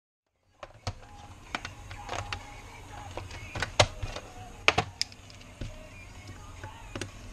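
Handling noise: about a dozen sharp, irregular clicks and taps over a steady low hum, starting abruptly out of silence.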